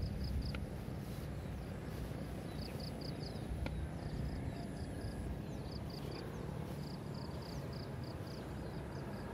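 Rural outdoor ambience: a steady low rumble with short high chirps in quick groups of three or four, recurring every second or so, over a faint thin high whine.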